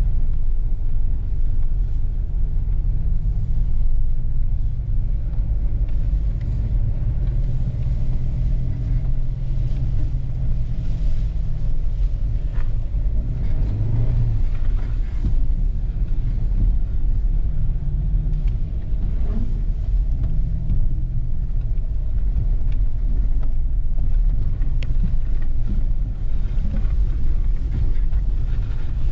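Off-road 4x4 vehicle driving a trail: a steady low engine and drivetrain rumble, with scattered small knocks and clicks.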